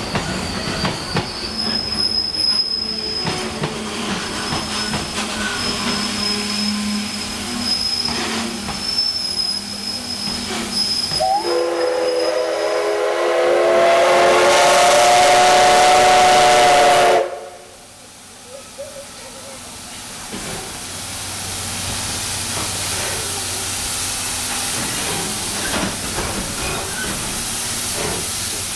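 Freight train rolling past on the next track with a thin wheel squeal. Then the C57 180 steam locomotive's whistle sounds a chord of several tones for about six seconds and cuts off suddenly. After that, a steady steam hiss builds as the locomotive starts away.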